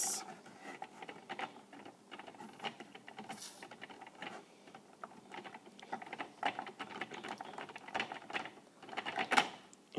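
Fingers pressing and flattening Play-Doh on a hard plastic playset: quiet, irregular small taps, clicks and rubbing of skin and dough against the plastic.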